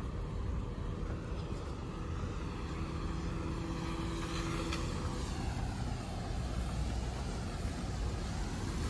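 Steady low rumble of a motor vehicle on the road, with a faint steady hum for a couple of seconds in the middle. The low rumble grows a little stronger in the second half as a box truck approaches.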